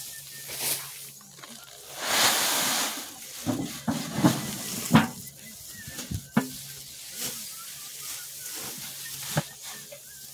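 Loose rice grain scooped with a tin can and poured into a woven plastic sack. There is a hissing rush of pouring grain for about a second, near the start. Scattered crunches and knocks of the can digging into the pile follow.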